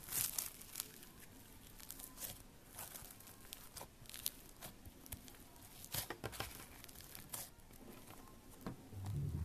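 Fingers poking and squeezing a blue glitter slime, making irregular small clicks and crackles as the slime is pressed and pulled. A dull low thump comes near the end.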